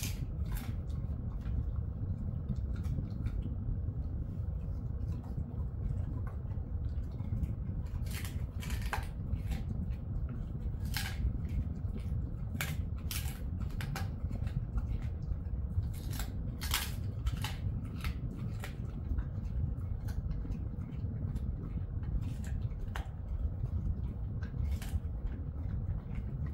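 Jindo-mix dog chewing a treat: irregular crunching clicks come in clusters over a steady low hum.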